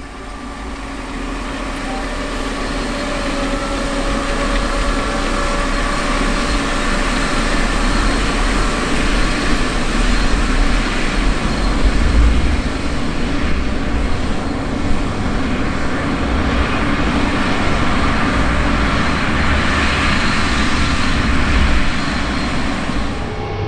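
Large farm tractor's diesel engine running steadily under load while pulling a planter through the field, growing louder over the first several seconds with a deep rumble.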